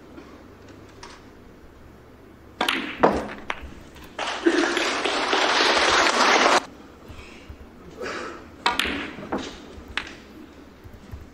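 Snooker balls clicking sharply as shots are played on the table. A burst of audience applause lasting about two seconds comes in the middle and cuts off suddenly.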